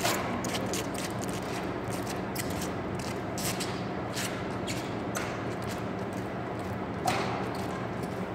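Badminton rackets hitting a shuttlecock in a rally: sharp single smacks every second or so, the loudest right at the start and about seven seconds in, over a steady hum of the gym's ventilation.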